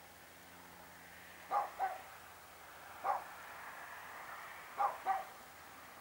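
A dog barking: five short barks, two of them in quick pairs.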